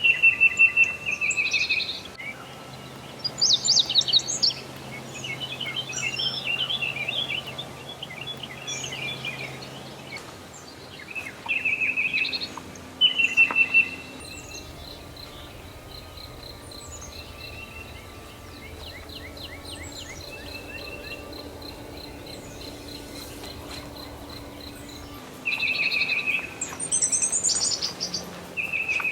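Several wild birds singing and calling, overlapping chirps, trills and short whistled phrases, with the loudest outbursts near the start, a third of the way in and near the end.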